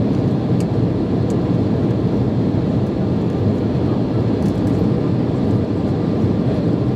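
Steady cabin noise of an Embraer 170 climbing out after takeoff: its General Electric CF34 turbofans and the air rushing past the fuselage make a deep, even drone, heard from a seat beside the wing.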